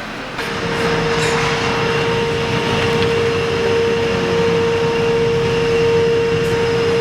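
A machine starts about half a second in and runs with a steady, unchanging whine over a noisy hum.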